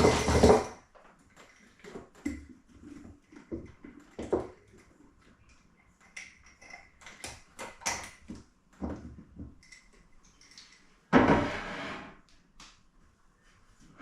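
Light knocks and clinks of jars and a wicker basket being set out on kitchen shelves, with a short scraping rustle at the start and another, louder one about eleven seconds in.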